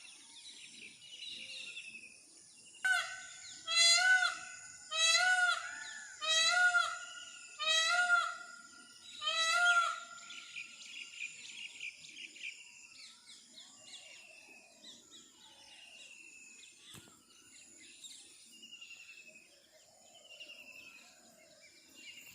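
Outdoor dawn chorus of several birds singing short descending whistles over a steady high-pitched hiss. About three seconds in, one bird breaks in loudly with six repeated calls of the same pitch, roughly one a second, and stops near the middle.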